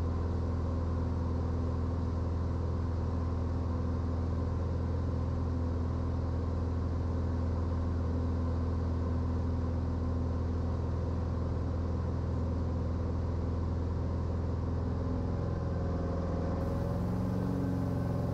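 Cirrus SR20's single piston engine and propeller droning steadily in flight, a deep hum with several steady tones over it; near the end some of the tones shift a little in pitch.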